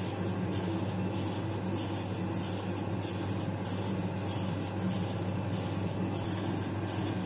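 Electric wet grinder running steadily as it grinds soaked rice into murukku batter. There is a constant motor hum and a soft swish that repeats about once a second as the stones turn in the drum.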